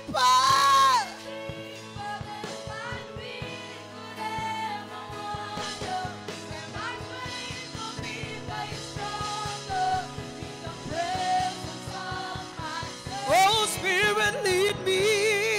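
Live gospel worship music: a singer's voice, wavering with vibrato, rings out at the start and again near the end over sustained keyboard chords and a steady drum beat, with an instrumental stretch between.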